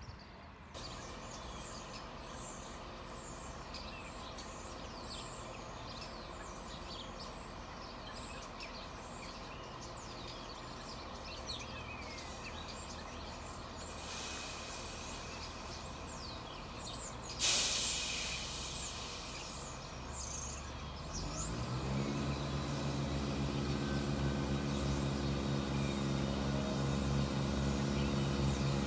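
Birds chirping over a faint background, then a sudden sharp hiss a little past halfway, then the diesel engines of a Class 171 Turbostar multiple unit coming in as a low drone that grows louder through the last third as the train draws into the platform.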